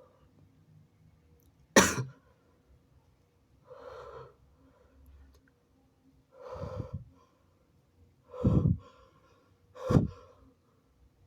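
A person's held-back sneeze bursts out sharply about two seconds in. It is followed by four gasping, half-voiced breaths that grow louder one after another: the build-up of an induced sneeze.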